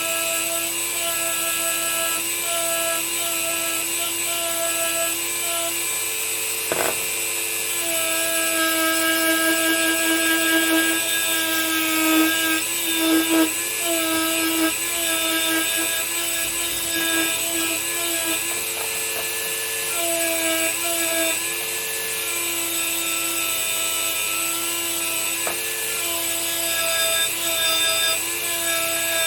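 Dremel rotary tool spinning a wire brush against white-metal kit parts, bringing soldered patches down flush. There is a steady motor whine over a hissing scrub, and the whine wavers and breaks as the brush is pressed onto the work and eased off.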